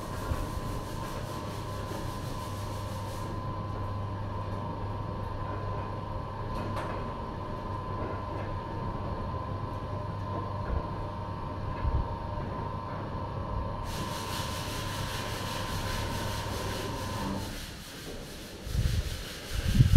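Motor drive of an automatic sliding canopy running with a steady hum as the roof panel travels along its rail, stopping a couple of seconds before the end. Low rumbling noise follows near the end.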